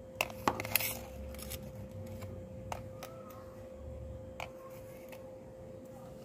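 Light plastic clicks and taps from a handheld walkie-talkie being handled: a quick cluster in the first second, then three single clicks spread over the next few seconds, over a faint steady hum.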